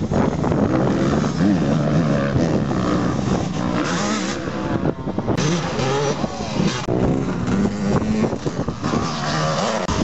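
Motocross dirt bike engines revving hard, the pitch rising and falling as the riders work the throttle. The sound cuts abruptly a couple of times.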